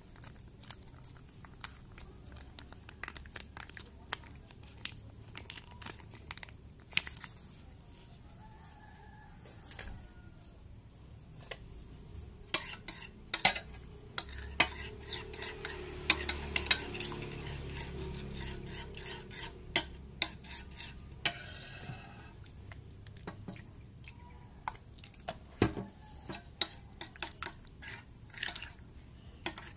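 A metal spoon stirs slime mixture and Rinso liquid detergent activator in a bowl. It clinks and scrapes often against the bowl's side, busiest and loudest about halfway through.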